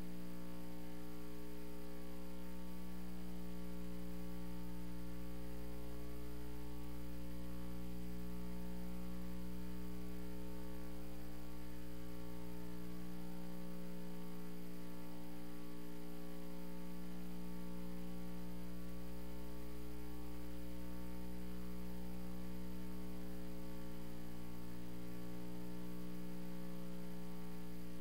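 Steady electrical mains hum in the sound system's audio feed: an unchanging low hum made of several steady tones, with nothing else standing out.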